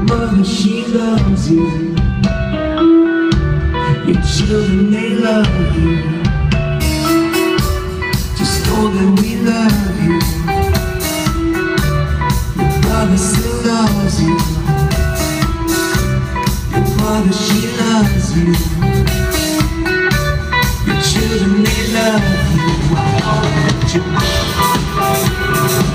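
Live rock band playing: electric guitar, bass and singing, with the drum kit and cymbals coming in about seven seconds in and driving a steady beat after that.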